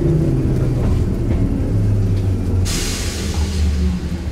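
Enoden electric train running, heard from the driver's cab: a low rumble with the hum of the motors shifting in pitch. About two and a half seconds in, a loud hiss starts suddenly and lasts about a second and a half.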